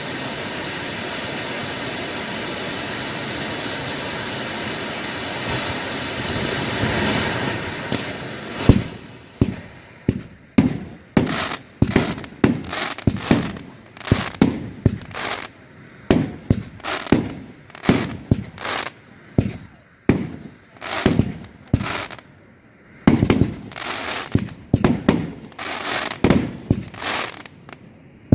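Professional fireworks display: a steady hissing rush for the first several seconds, then a rapid series of sharp aerial firework bangs, often one or two a second, each trailing an echo.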